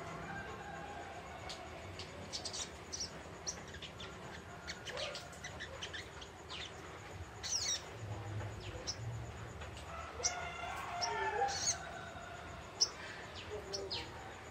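Young sunbird (sogok ontong) chirping: a scattered series of short, high, quickly falling chirps, with a longer wavering twitter about ten seconds in.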